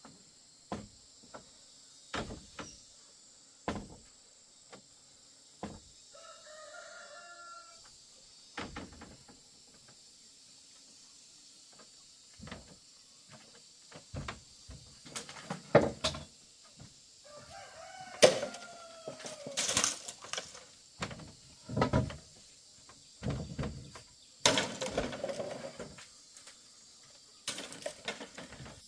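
A rooster crowing, twice: once about six seconds in and again past the middle. Irregular sharp knocks and clacks come throughout and grow denser and louder in the second half, over a steady high buzz of insects.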